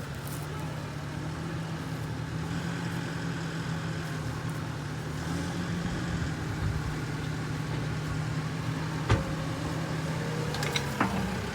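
Construction machine's engine running steadily. A sharp knock sounds about nine seconds in, and a couple more come near the end.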